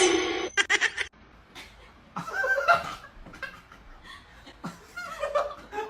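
A sudden loud noise in the first second, then a person laughing and chuckling in short bursts.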